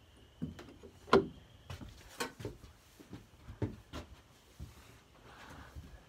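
Footsteps going from gravel onto a wooden plywood floor, with irregular knocks and thuds. One sharp knock about a second in is the loudest.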